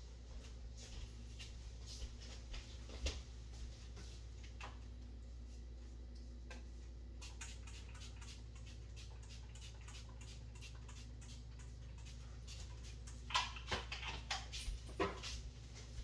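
Steady low hum with scattered faint clicks and ticks, and a quick run of louder clicks about thirteen seconds in.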